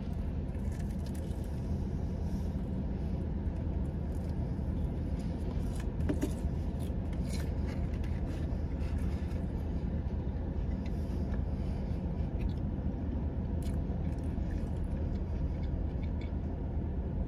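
Steady low rumble of a car's running engine heard from inside the cabin, with faint scattered clicks and rustles.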